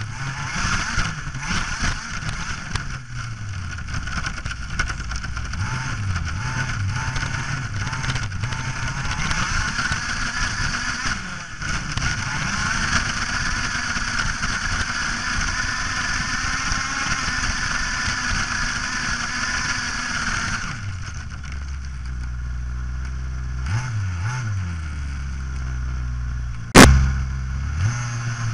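Onboard sound of a radio-controlled model vehicle driving through grass: its motor and drivetrain whine rises and falls in pitch as it speeds up and slows, over a steady hiss. It settles to a lower, steadier hum after about 21 seconds, and a single sharp knock comes near the end.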